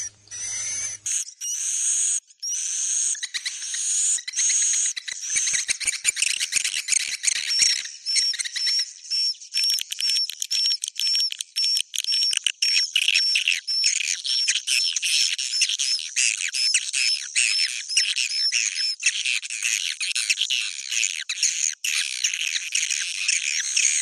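Edible-nest swiftlets twittering in a dense chorus of rapid high chirps and trills, starting about a second in, with a stretch of evenly repeated short notes at about two or three a second. It is a 'suara inap' (roosting call) lure track, played in swiftlet houses to make the birds settle and stay.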